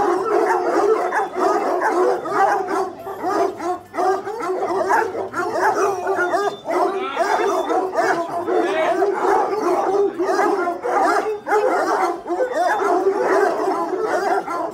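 A pack of over a hundred tricolour Anglo-French hounds baying, howling and yelping all at once in a continuous, overlapping chorus. The pack is excited, waiting to be let in to its food.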